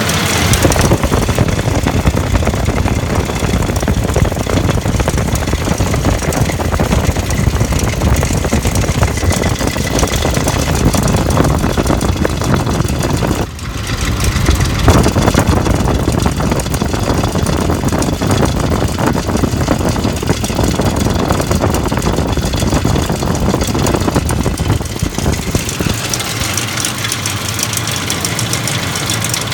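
2004 Ford F-150 engine running at idle with a repeated knock in its sound. The level dips briefly about halfway through, and the low rumble thins out near the end.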